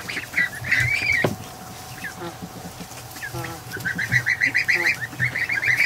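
Young domestic geese and ducks calling: one call about a second in, then a quick run of short, high peeping notes over the last two seconds.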